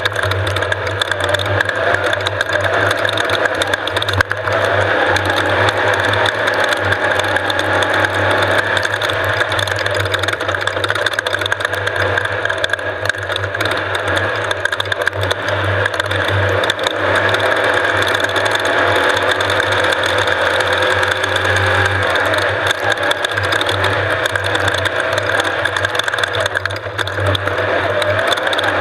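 Off-road race vehicle's engine running steadily under way, with a constant mechanical clatter.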